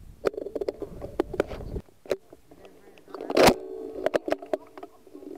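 A single shotgun shot about three and a half seconds in, among scattered clicks and knocks of the gun being handled.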